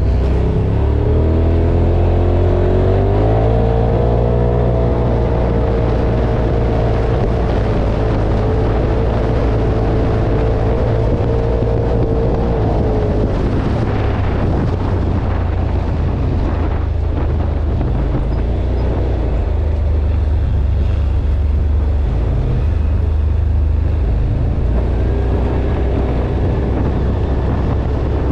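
Quad bike (ATV) engine running under way, its pitch rising over the first few seconds and then holding steady, with heavy wind rumble on the microphone. About halfway through the engine note sinks into the rumble.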